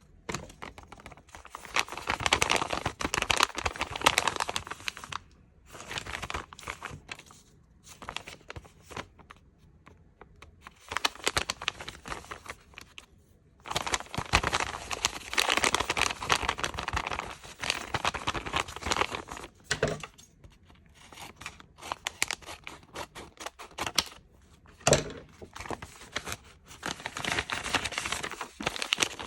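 Plastic blind-bag packaging crinkling and being torn open by hand, in bursts of a few seconds with quieter pauses between and a couple of sharp clicks.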